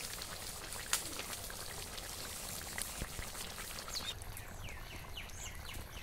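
Fish curry simmering in an iron wok over a wood fire: a steady bubbling fizz with a few sharp pops.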